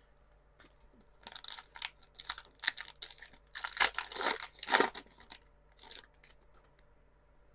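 Foil wrapper of a Pokémon TCG Twilight Masquerade booster pack being torn open and crinkled, in a run of crackling rips that is loudest in the middle and fades out.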